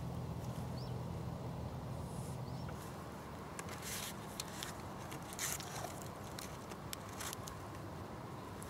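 Fishing tackle handled at the reel, giving irregular soft rustles and clicks from about three and a half seconds in. Before that a low steady hum fades out.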